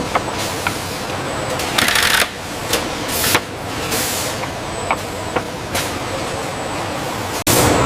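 Steady machinery noise with scattered sharp clicks and a few short hissing bursts, cutting off abruptly near the end.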